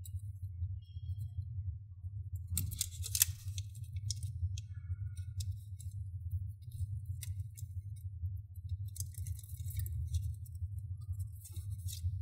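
Hands handling plastic laptop case parts and tape: scattered small clicks and rustling crinkles, the loudest a crinkly burst about three seconds in, over a steady low hum.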